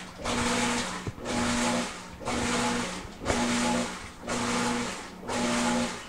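Whirlpool WTW5610XW3 top-load washer agitating in test mode: the motor drives the tub's washplate back and forth in short strokes, about one a second, each a brief motor surge, over a steady low hum.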